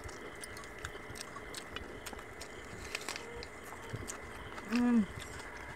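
Close-up eating sounds: scattered small clicks and smacks of two people chewing and of fingers mashing soft boiled rice on steel plates. A brief hum from one of the eaters near the end.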